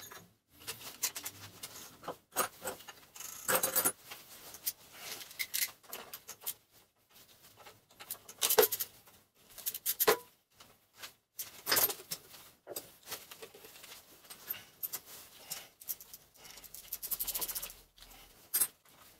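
Wrenches and small metal engine parts clinking, clicking and scraping in irregular short bursts as external components are unbolted by hand from a cast-iron Kohler K301 engine.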